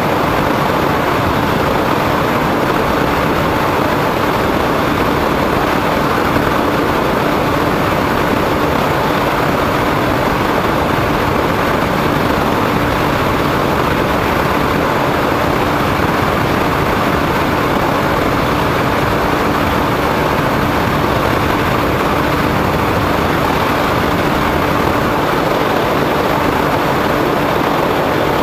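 Motor and propeller of a foam RC airplane running at a steady throttle, with wind rush, heard through its onboard camera: an even noise with a constant hum that does not change pitch.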